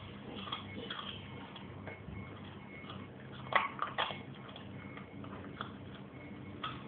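Dog gnawing and crunching a raw bone: irregular clicks and cracks of teeth on bone, with two louder cracks about halfway through.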